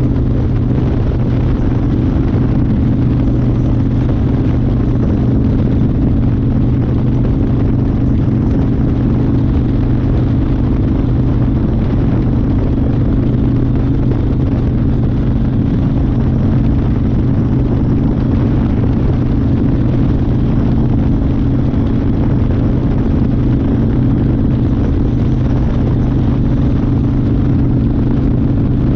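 1992 Harley-Davidson Fat Boy's Evolution V-twin running at a steady cruising speed, its pitch holding even, with wind and road rush over it.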